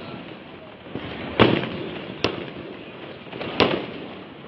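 Firecrackers going off on New Year's Eve: three sharp bangs, about a second and a half in, near the middle and near the end, each followed by a short echo.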